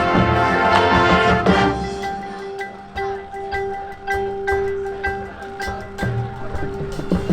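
Marching band playing: a loud full-band passage breaks off about a second and a half in, giving way to a quieter passage of a held note under mallet percussion.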